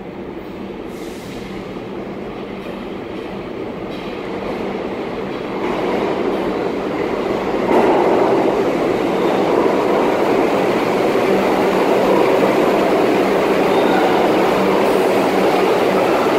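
Kawasaki R62 New York City subway train approaching through the tunnel and pulling into the station. Its rumble grows steadily louder and jumps up about eight seconds in as it reaches the platform, with a faint wheel squeal near the end.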